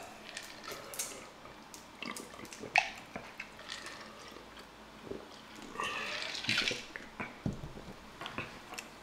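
Close-miked wet eating sounds of boiled crawfish being peeled and sucked: scattered shell clicks, slurps and smacks, with sips from a drink.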